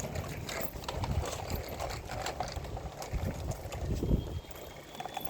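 Plastic toy tractor being picked up and run along a surface, making irregular knocks, clicks and low bumps. A faint high steady whine joins near the end.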